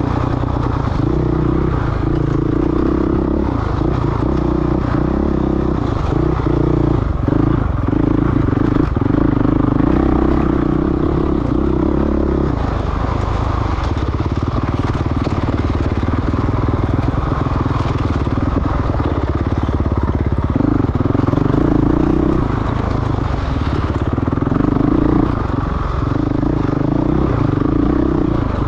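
Dirt bike engine running hard over rough ground, the throttle opening and closing every second or so, with clatter from the bike.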